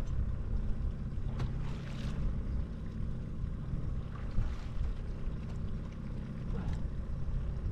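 Fishing boat's motor running with a steady low hum, mixed with wind and water noise, and a few faint knocks.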